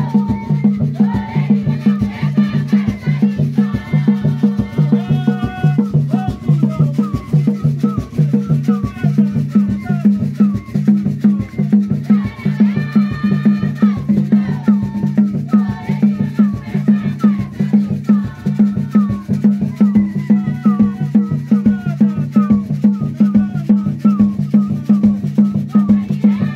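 Group of voices singing a church song over a steady, even percussion beat.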